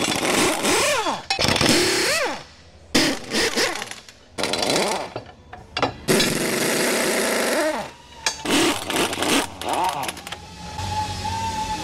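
Pneumatic impact wrench running in a string of short bursts, each a second or two, its pitch rising and falling as it spins the bolts off a bulldozer's steel track pads.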